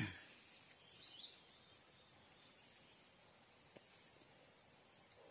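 Insects droning in a steady high-pitched trill, with a brief thump at the very start and a faint short chirp about a second in.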